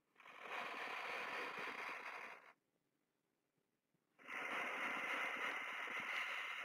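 A woman's deep, audible breathing: a long inhale of about two seconds, a pause, then a longer exhale lasting about three seconds, paced with arm movements overhead and back.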